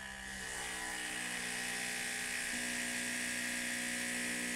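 Small electric pump running with a steady whir as it circulates cooling water through a distillation condenser. It grows louder over the first second, then holds steady.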